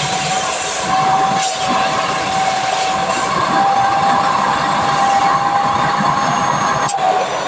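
Canister vacuum cleaner running steadily, its motor whine over a rush of air as it sucks the air out of a plastic vacuum storage bag through the bag's valve, compressing the clothes inside. The airflow dips briefly twice.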